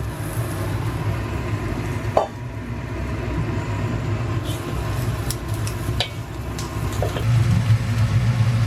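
Stir-frying deep-fried shrimp with breadcrumbs and garlic in a wok: a spatula scrapes and knocks against the pan a few times over a steady low drone from the cooker, which swells slightly near the end.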